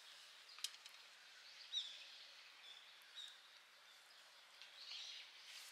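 Faint outdoor quiet with a few short bird chirps, one about two seconds in and another about a second later, and a single small click just before them.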